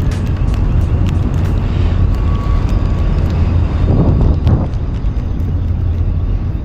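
A steady low rumble, with a brief louder swell about four seconds in.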